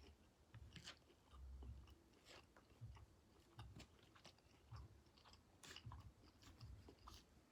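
Faint close-up chewing and mouth sounds of a person eating a shrimp and vegetable hibachi meal: soft wet clicks and small crunches scattered irregularly, with low soft thuds.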